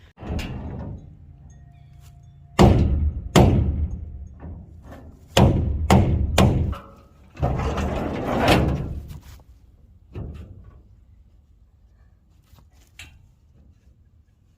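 A small garden shed being knocked and pushed into shape: a run of heavy thunks and bangs, with a longer noisy clatter in the middle, dying away after about ten seconds.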